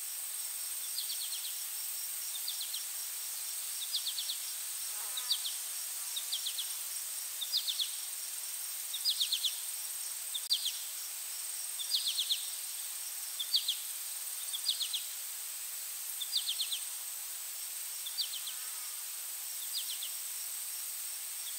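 Insects calling: a steady high-pitched drone, with short chirps of a few quick pulses repeating about once every second or so.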